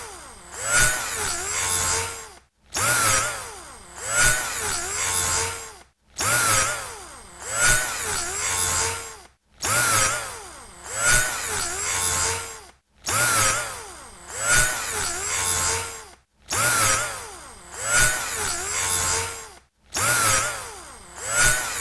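Electric drill motor whining in repeated passes, about every three and a half seconds, each with a loud start and a pitch that swoops down and back up, a Doppler effect, separated by short silent gaps.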